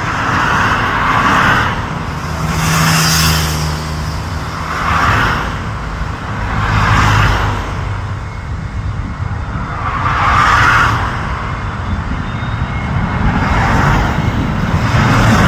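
Road traffic: cars passing one after another, each one swelling and fading every couple of seconds, over a steady low rumble.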